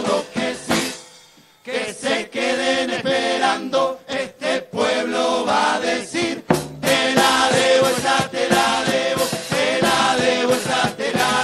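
Murga choir of massed voices singing a chant-like refrain, backed by drum and cymbal hits. The singing breaks off briefly about a second in and then comes back in full.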